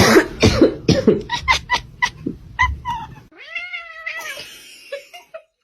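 A domestic cat meowing: one drawn-out call of about a second that rises and then falls in pitch, after a run of clicks and knocks.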